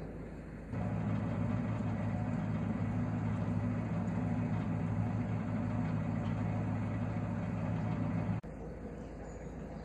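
Narrowboat's diesel engine running steadily. Under a second in it becomes a louder steady low drone, as heard inside the boat's cabin, and it drops back suddenly to a quieter engine hum about a second and a half before the end.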